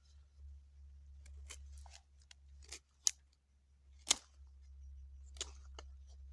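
A series of sharp clicks or snips, about six spread irregularly over a few seconds, with the loudest two around the middle, over a low steady hum.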